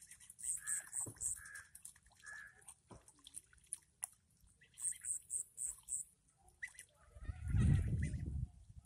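Ducks foraging in a muddy rice paddy: soft calls and quick runs of short high chirps. A low rumble swells for about a second and a half near the end.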